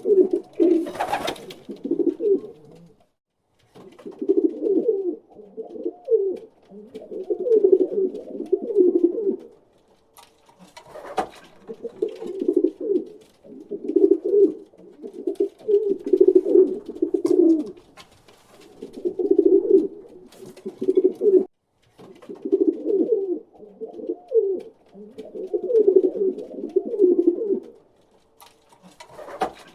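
Pigeon cooing: low, rolling coos in phrases of a second or two, repeated one after another with short pauses. A few sharp clicks or taps fall between the phrases.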